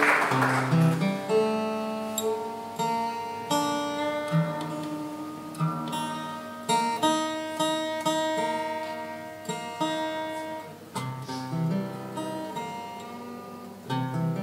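Acoustic guitar played solo, plucked chords and single notes struck one after another and left to ring. Applause dies away in the first moment.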